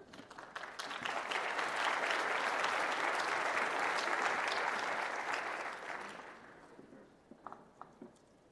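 Large audience applauding. It builds over the first second, holds, then dies away after about six seconds, leaving a few faint knocks near the end.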